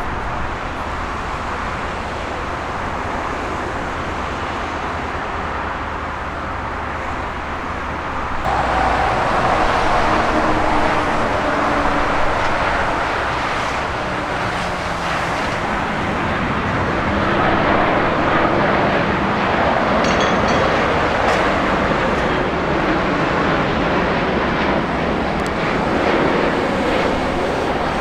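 Jet airliner engine noise: a Boeing 747-8 arriving. About eight seconds in it changes abruptly to a louder, steady jet rush from an arriving Boeing 787-8.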